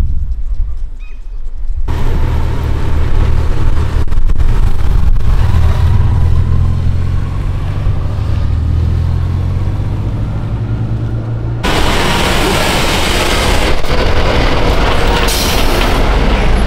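Road vehicle engines. From about two seconds in there is a steady low engine drone. From about twelve seconds in it gives way to a louder, broader rumble of a heavy truck hauling a low-loader trailer.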